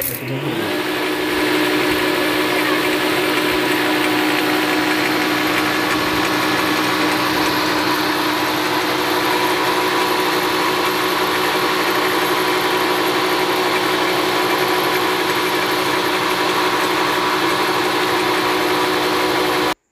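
Multifunction woodworking machine's motor spinning up and then running steadily, driving a ceramic grinding wheel in its drill chuck while a planer blade in a sliding jig is drawn along the wheel to sharpen it. The sound rises in pitch for the first second, holds even, and stops abruptly near the end.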